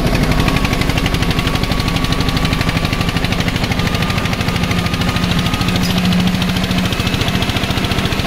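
Eicher 241 tractor's single-cylinder diesel engine running, heard close up from the seat: a steady, rapid, hard chugging beat.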